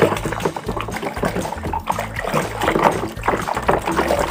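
A hand swishing a toy car through a basin of foamy soapy water: irregular sloshes and splashes.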